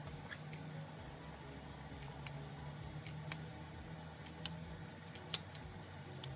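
A few sharp light clicks spaced a second or so apart, from a hair straightener's plates snapping shut and being handled on sections of hair, over a faint steady low hum.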